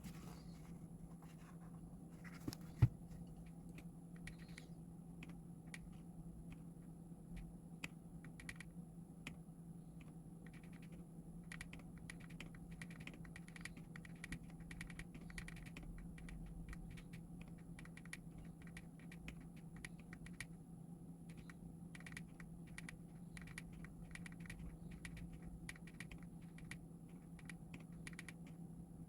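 Typing on a custom mechanical keyboard with an acrylic housing, Bingpo switches, transparent stabilizers and Akko transparent keycaps. The keystrokes are scattered at first, then come as a quick, steady stream from about ten seconds in.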